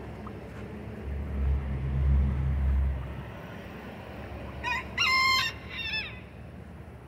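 White silkie rooster crowing once, about five seconds in: a short note, a long held note, then a falling end. Before it, a low rumble lasts about two seconds.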